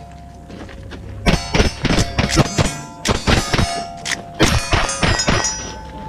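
Rapid string of rifle shots at steel targets, starting about a second in, with the steel plates ringing after hits. There are a dozen or more sharp cracks at irregular intervals of about a third of a second, each hit leaving a short metallic ring.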